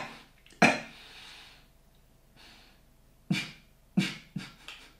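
A man coughing into his fist, his throat burning from a very hot chili mango chutney. There is one cough about half a second in, followed by a breath, then a quick run of three or four coughs near the end.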